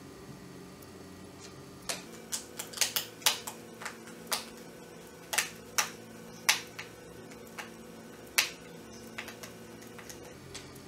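A screwdriver working screws into the plastic housing of an Orpat HHB-187E hand blender: a run of sharp, irregular clicks starting about two seconds in, a few of them much louder than the rest.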